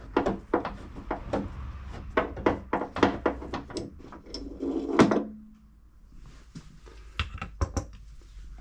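Quick irregular clicking of a hand tool working on the 8 mm bolts that hold the tailgate trim, several clicks a second. About five seconds in there is one sharp metallic knock with a brief ring, and a few fainter clicks follow near the end.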